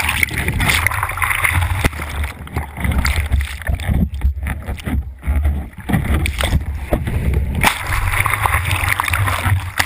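Ocean surf: water rushing and sloshing close to the microphone over a heavy, uneven low rumble, which thins out for a couple of seconds in the middle.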